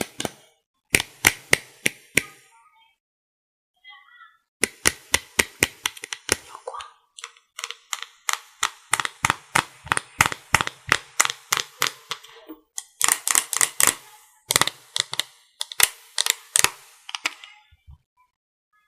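ASMR tapping on hard objects: sharp clicks and taps in quick runs of about five to six a second. A pause of about two seconds comes near the start.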